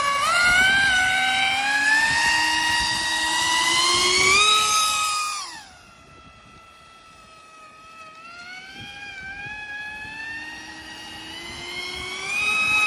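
Pro Boat Aerotrooper RC airboat's brushless motor and air propeller, running on a 4S LiPo, whining at high throttle with the pitch climbing over the first four seconds. About five and a half seconds in it cuts back sharply and goes quieter, then winds up again and grows louder near the end.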